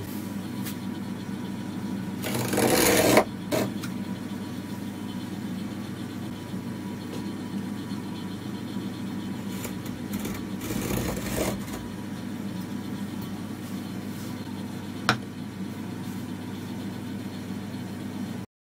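A steel marking knife blade scoring wood along a steel ruler: scratchy strokes about a second long, the loudest about two seconds in and another near eleven seconds, over a steady low hum. A single sharp tap about fifteen seconds in.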